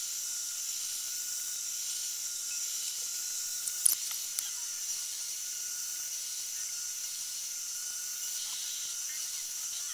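Steady high-pitched hiss with a faint steady whine under it, broken by a single sharp click about four seconds in.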